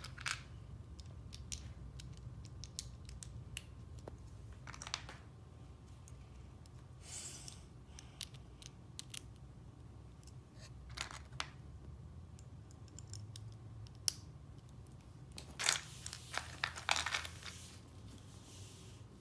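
Small plastic toy bricks clicking and rattling as a hand rummages through a box of loose bricks and presses pieces together, in scattered clicks and short bursts that are busiest near the end, over a faint low hum.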